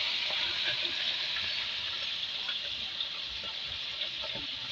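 Tilapia deep-frying in hot oil in a wok: a steady hissing sizzle with scattered faint crackles.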